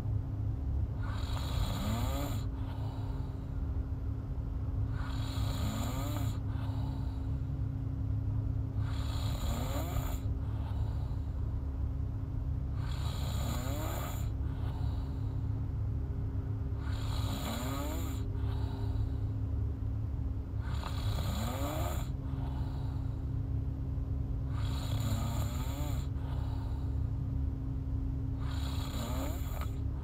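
A young woman snoring in her sleep, with a snore and breath repeating regularly about every four seconds.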